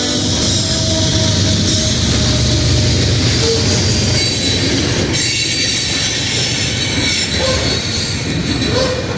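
Union Pacific coal train's hopper cars rolling past close by: a steady, loud rumble of steel wheels on the rails, with brief wheel squeals now and then. The locomotive horn cuts off just as it begins.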